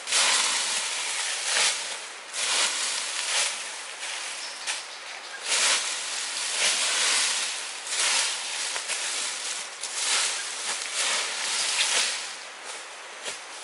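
Dry leaves and brush rustling in irregular surges, each lasting about a half to two seconds.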